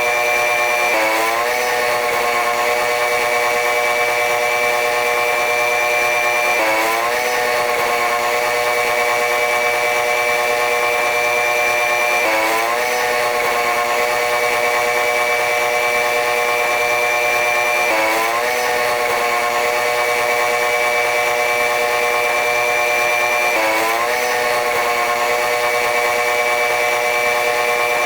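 Running noise of a train hauled by an R138 diesel-electric locomotive, played back at eight times speed so it comes out as a high, steady whine of several tones. About every six seconds the tones dip and glide quickly back up.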